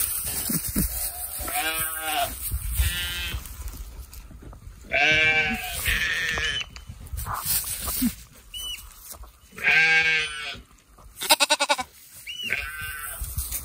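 Young lambs bleating close by, with loud bleats about two, five and ten seconds in and quieter calls between. A brief rapid rattle sounds shortly before the end.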